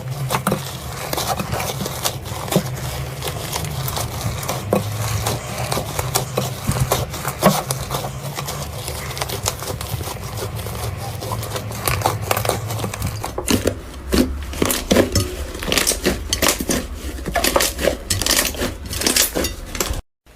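Slime being squeezed and pressed by hand, giving a dense run of small crackling, popping clicks. The sound cuts off abruptly near the end.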